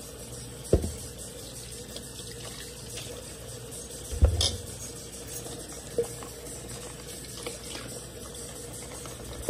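Kitchen tap running steadily as raw beef is rinsed at the sink, with a thud under a second in and a louder, heavy thud about four seconds in as meat is dropped into a large metal stockpot; a small knock follows at about six seconds.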